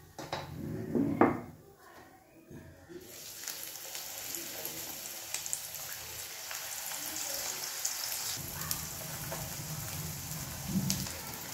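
Hot oil sizzling and crackling in a kadhai as flat discs of potato mathri dough fry in it. The sizzle starts up suddenly about three seconds in and then holds steady, after a short, louder sound about a second in.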